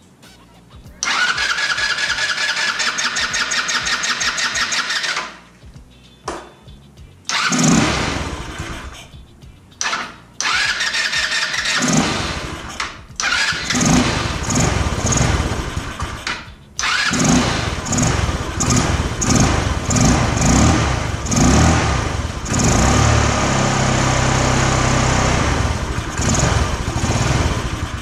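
150cc GY6 scooter engine cranked on its electric starter for about four seconds without catching. It then fires and runs unevenly, surging and sagging, dips out briefly about two-thirds of the way through and picks up again. A new ignition coil has not cured the rough running, which the owner takes as a sign that the valves need adjusting.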